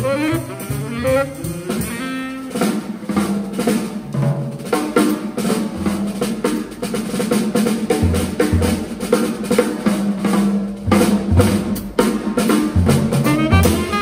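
Jazz drum kit playing a solo break on snare, cymbals and bass drum, with dense rapid strikes. A tenor saxophone finishes a phrase about two seconds in and comes back in near the end.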